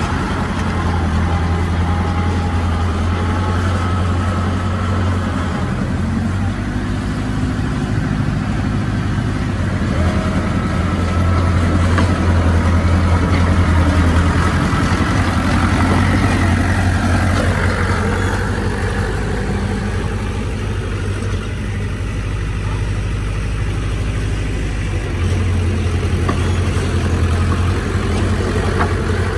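Heavy diesel engine running steadily with a deep hum, with a higher tone that briefly rises and falls about halfway through.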